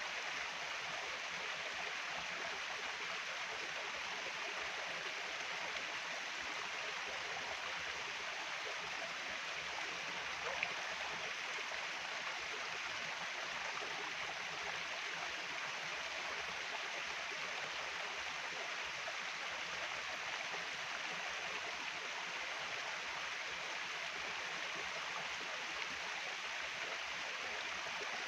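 Steady rush of flowing stream water, unchanging throughout, with a single short tick about ten seconds in.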